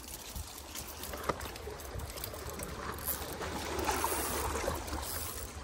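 Sea water washing and trickling among the rocks of a breakwater shore, a steady wash with a small click about a second in.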